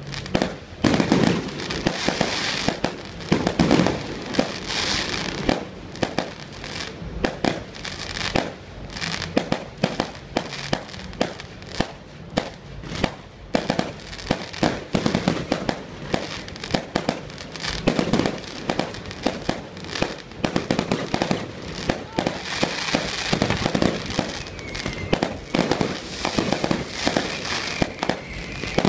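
Fireworks display: a dense, unbroken run of sharp bangs from aerial shells and launches, several a second, with crackling between them.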